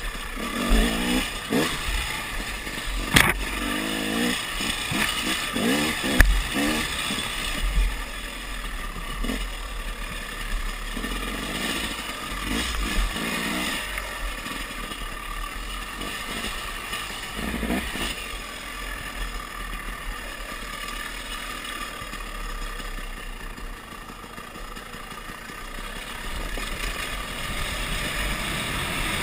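KTM dirt bike engine revving up and down on a rough dirt trail, with a couple of sharp knocks in the first few seconds. From about halfway on the engine is fainter under a steady rushing noise.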